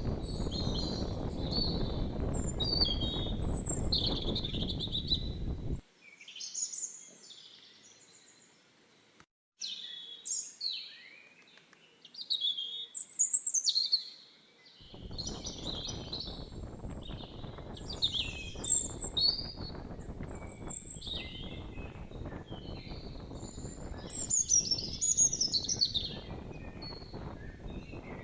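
Small birds chirping and singing, many quick high calls overlapping. Under them a steady low noise drops away for several seconds in the middle.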